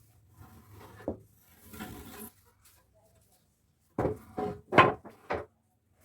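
Wooden pieces knocking and scraping: a single knock about a second in, a short scrape, then four quick loud knocks near the end.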